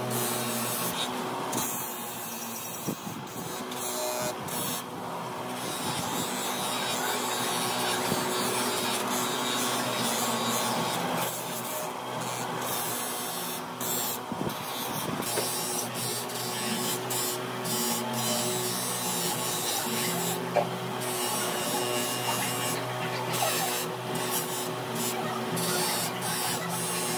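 Bench grinder running steadily while a small steel pipe-wrench part is pressed against its spinning grey polishing wheel, a scraping rub that swells and eases as the part is worked against the wheel to clean and polish it.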